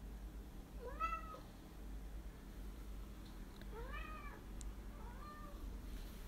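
Calico cat meowing three times: one call about a second in, then two more close together around four to five seconds, each rising then falling in pitch.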